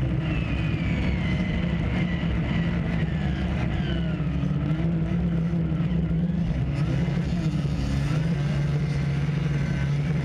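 Racing snowmobiles running flat out, a loud steady engine drone with higher whining tones that slowly fall in pitch.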